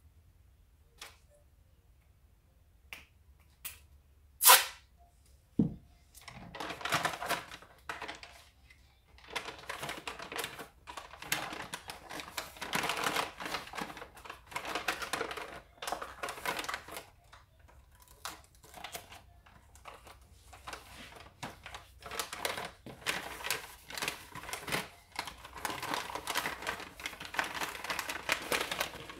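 Gift-wrapping paper and tissue paper crinkling and rustling as hands fold them around a boxed gift. The rustling comes in irregular spells, after a few sharp clicks and a thud in the first six seconds.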